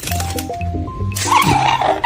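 Bouncy background music with a steady bass line; about a second in, a loud, harsh parrot screech cuts across it for about a second.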